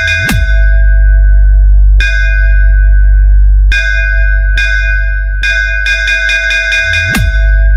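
Electronic DJ bass-test track: a heavy sustained deep bass under bright, bell-like synth notes struck in quick runs with pauses between them. A short swooping pitch drop in the bass comes shortly after the start and again near the end.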